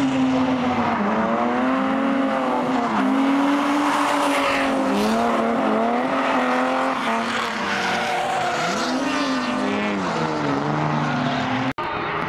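Drift cars' engines revving hard and falling away again and again as the throttle is worked through a slide, over the hiss and squeal of spinning tyres. The sound breaks off sharply for a moment near the end.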